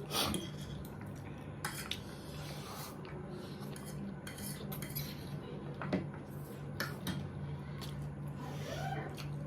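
Eating utensils clinking and scraping against plates and bowls in irregular taps, the sharpest about a quarter-second in and again around six seconds, over a steady low hum.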